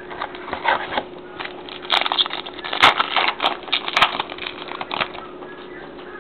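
Trading cards being handled and flipped through: a dense crackling rustle of card stock with a few sharp clicks, dying down about five seconds in.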